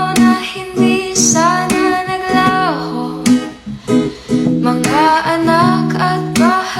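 Music: a song with a voice singing over plucked acoustic guitar.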